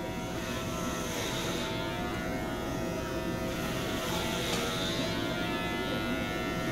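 Electric hair clippers buzzing steadily while shaving long hair off a head, the buzz roughening twice as the blades cut through the hair.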